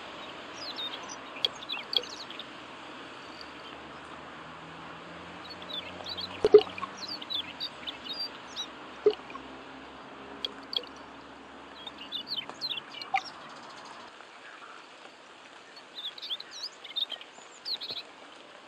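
Small birds chirping in scattered bursts of short, high calls over a steady hiss of light rain on the water. A single sharp knock comes about six seconds in.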